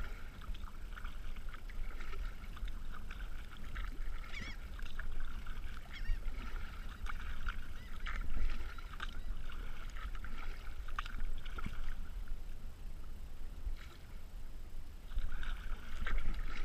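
Water splashing and trickling along a kayak's hull as it is paddled, with small paddle splashes, over a steady low rumble.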